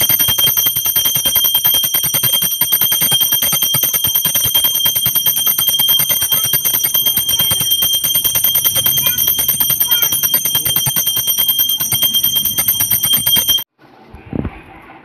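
Temple bell rung loudly in rapid, unbroken strokes, with a steady high ring over the clanging; it cuts off suddenly a little before the end.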